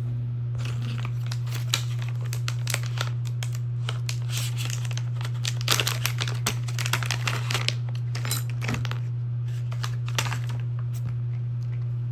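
Crinkling, rustling and light clicking of things being handled, over a steady low hum.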